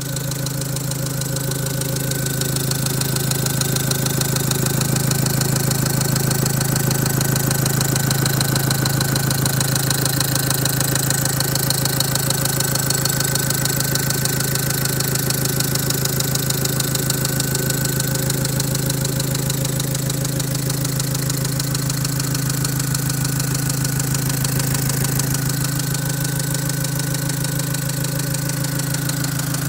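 Opel Vivaro's 1.9-litre F9Q four-cylinder diesel idling steadily with a rapid knock, a knock the owner reports once the engine is warmed up.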